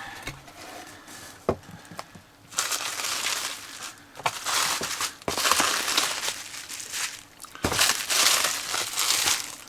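Cardboard shipping box being opened by hand, flaps pulled back and packing material rustling and crinkling in irregular bursts, with a few sharp knocks.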